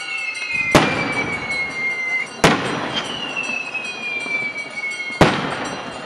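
Skyrockets fired during the festivities: thin whistles sliding slowly down in pitch, each lasting about two seconds, and three sharp bangs as rockets burst, one about a second in, one a little later and one near the end.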